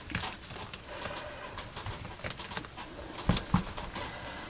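Flexible silicone tray mould being pressed and peeled back from cured resin: soft scattered clicks and rubbing, with a couple of low knocks a little past three seconds in.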